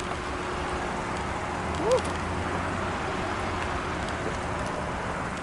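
Steady outdoor background noise of a parking lot, with one short squeak that rises and falls in pitch about two seconds in.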